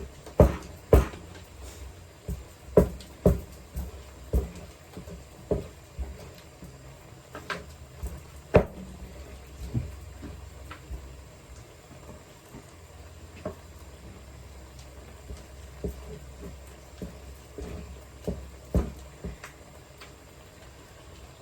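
Rolling pin pounding cooked yam in a wooden bowl, working it into smooth pounded yam: irregular knocks, closer together in the first half and thinning to occasional ones later.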